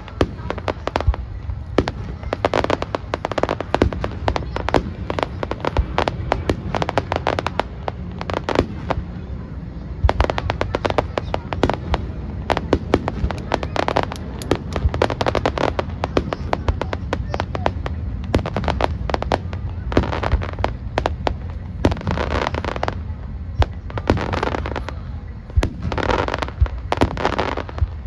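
Fireworks display: shells bursting in a dense, continuous string of bangs and crackles over a low rumble, the volleys thickening near the end.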